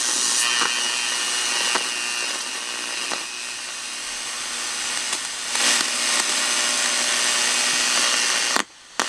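RCA AR-77 shortwave receiver tuned between stations: loud static hiss with faint steady whistles and a few clicks. The sound cuts out abruptly near the end.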